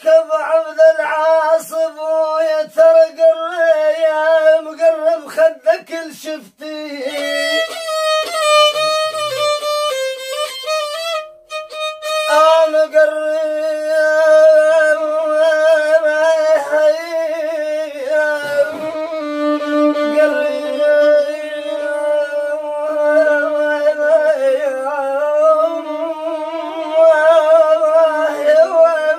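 Solo violin playing a melody with wide vibrato over a steady lower note. About seven seconds in it climbs into a high passage with quick ornaments, breaks off briefly, then settles back to the middle register.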